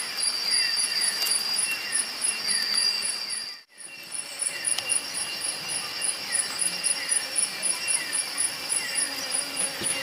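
Chorus of night insects: evenly repeating high chirps about three a second over a steady high trill, with short falling chirps about twice a second. The sound drops out briefly just under four seconds in.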